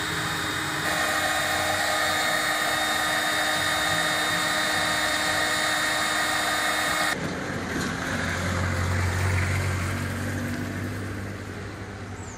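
Electric hot air gun running steadily, its fan whirring as it blows hot air to melt a plastic stick for welding a crack in a plastic tub. The whir cuts off abruptly about seven seconds in, leaving a quieter low hum.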